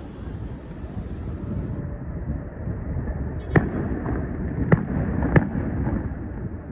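Train running past: a steady low rumble with three sharp clanks in the second half, under a second apart.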